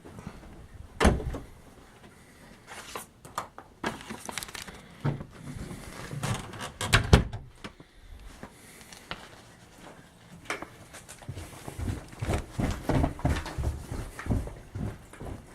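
Irregular knocks and thumps as someone moves through a house, the loudest about a second in and around seven seconds, with a run of quicker thuds near the end.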